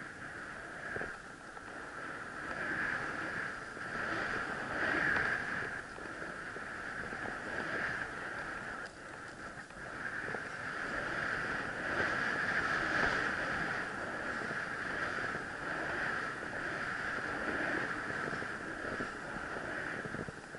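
Skis hissing through deep powder snow with wind rushing over the camera microphone at speed, the noise swelling and fading as the skier turns.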